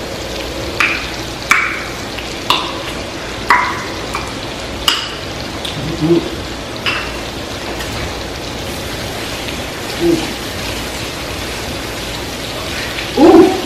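Meat frying in a pan: a steady sizzle, with sharp pops of spattering fat every second or so for the first several seconds.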